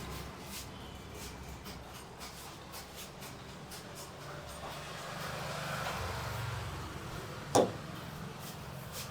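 Low steady hum of street traffic, with light ticking and one sharp smack about seven and a half seconds in, typical of a hand slap during a head massage.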